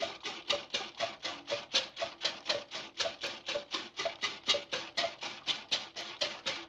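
Cartoon sound effect of milk squirting into a metal pail as a cow is milked by hand: short, even spurts, about four a second.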